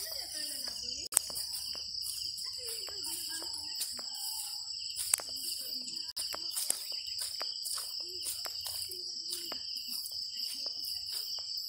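A chorus of insects, crickets or similar, keeps up a steady, high-pitched drone, with scattered short clicks on top.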